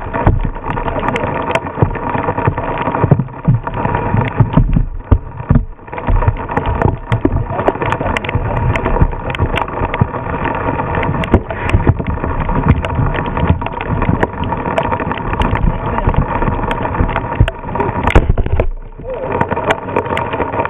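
Squall wind, around 35 mph, buffeting the microphone over heavy rain: a loud, continuous rushing rumble that swells and falls with the gusts. It eases briefly near the end.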